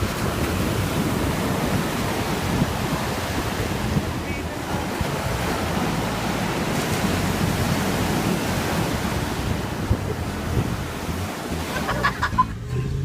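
Ocean surf washing on a beach, with wind noise on the microphone. It breaks off about a second before the end.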